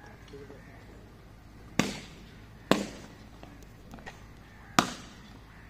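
Soldiers' boots stamping hard on tarmac in a ceremonial drill march: three loud, sharp stamps, the last two about two seconds apart, with a fainter one between them, each ringing briefly.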